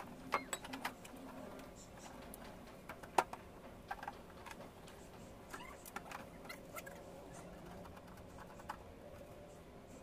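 Faint, scattered light clicks and taps of a screwdriver and screws worked on the metal casing of a window air conditioner, one sharper tap about three seconds in.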